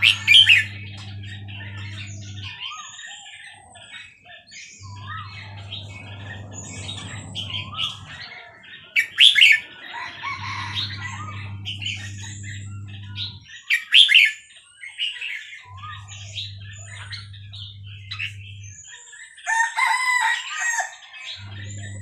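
A caged red-whiskered bulbul sings and chatters in short phrases, several of them loud. Under the song a low mechanical hum switches on and off every few seconds.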